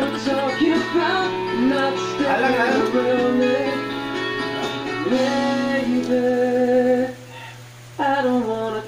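A song with a singing voice over instruments; the sound drops away for about a second near the end, then the singing resumes.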